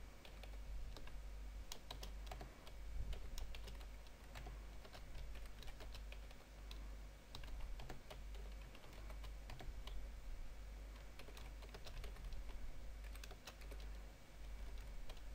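Typing on a computer keyboard: irregular runs of quick key clicks, with a low steady hum underneath.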